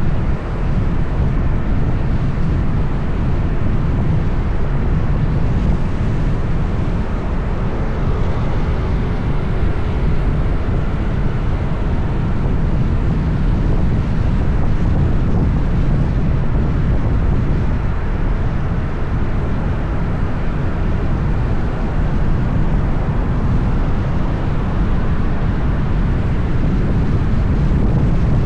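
Steady rumble of wind on the microphone mixed with road traffic noise while moving along a city road.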